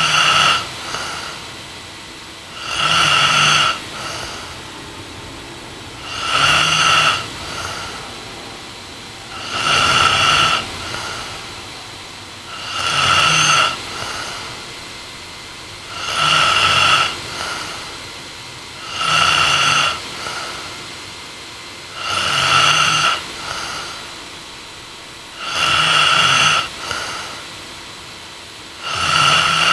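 A young woman snoring in her sleep, with even, loud snores about every three seconds. Each lasts about a second and is followed by a short, softer breath.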